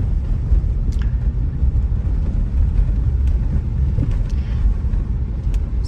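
Steady low rumble of a car being driven, heard from inside the cabin: tyre and road noise with the engine underneath, and a couple of faint knocks.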